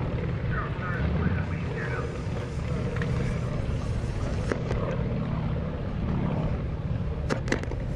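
Yak-52TW's nine-cylinder Vedeneyev M-14P radial engine droning steadily as the propeller plane flies past. A few sharp clicks near the end.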